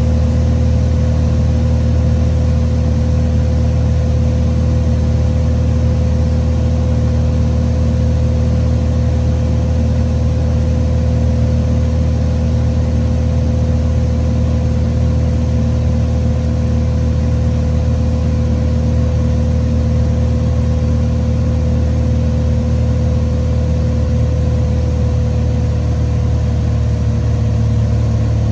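Cessna 182's six-cylinder piston engine and propeller droning steadily, heard from inside the cockpit on the landing approach.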